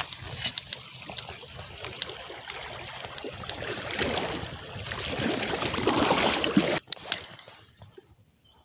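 River current rushing and gurgling around a kayak's hull as it drifts through a riffle between rocks, growing louder, then cutting off abruptly about seven seconds in.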